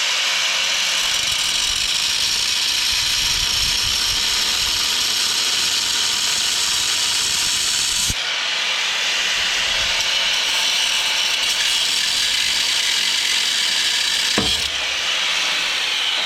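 Angle grinder with a cutoff wheel cutting through a steel leaf-spring U-bolt, a loud, steady high-pitched grinding that falters briefly about eight seconds in and again near the end as the wheel bites.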